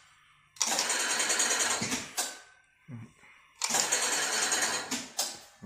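Auger powder filling machine running in two bursts of about a second and a half, each a dosing cycle started from the foot pedal, each cut off with a short knock.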